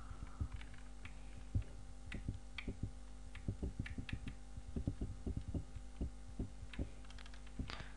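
Irregular soft clicks and taps from a computer mouse being handled on a desk, over a steady low electrical hum.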